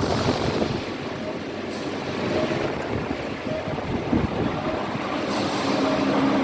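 Metalworking planer machine running, giving a steady mechanical noise with faint whining tones that come and go.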